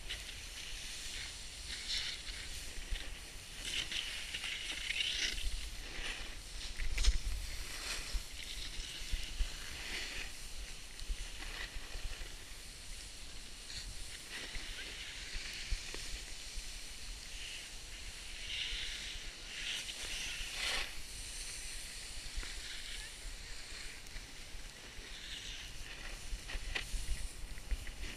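Snowboard edge hissing and scraping over snow in uneven swells as the board turns down the slope, with a low rumble now and then.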